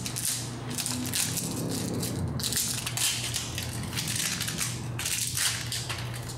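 Crinkling and rustling of packaging as a new electronic fluorescent ballast is unwrapped and handled, in irregular bursts throughout, over a steady low hum.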